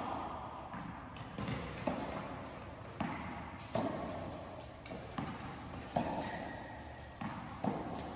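Tennis balls being struck by rackets and bouncing on the court, a sharp pop about once a second, each echoing in a large indoor tennis hall.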